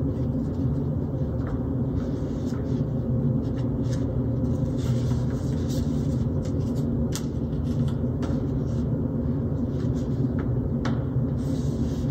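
Steady low rumble of background noise, with a few faint light taps and rustles as lecture papers are set down on a wooden lectern and a paperback book is opened and its pages turned.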